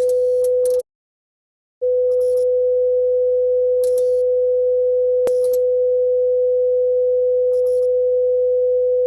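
Emergency alert (EAS) alarm sounding a steady single tone. It breaks off under a second in, comes back about a second later and holds on, with short bursts of crackly static over it several times.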